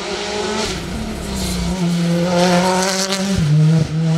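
Hyundai i20 R5 rally car's turbocharged 1.6-litre four-cylinder engine held at high revs as the car drives hard past on a tarmac stage. The note holds steady, drops a step about two seconds in, then dips sharply twice in quick succession a little over three seconds in.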